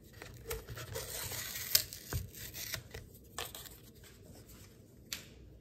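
Inner seal being torn off the mouth of a plastic protein-powder tub: a scratchy tearing, busiest in the first three seconds, with a few sharp clicks.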